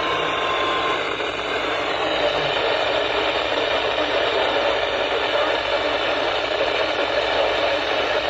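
Heavy static hiss from a radio receiver on a weak signal, with a thin steady tone that stops about a second in.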